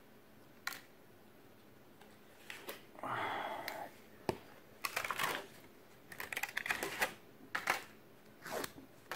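Plastic tub of crème fraîche being opened and spooned: the foil lid crinkles and a spoon clicks and scrapes against the plastic in a string of short, irregular clicks, with a longer rustle about three seconds in.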